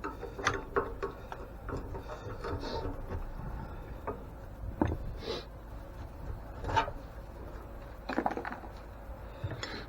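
Scattered knocks, clinks and scrapes of hand tools and metal parts being worked on an old grain mill, a few with a short ringing note.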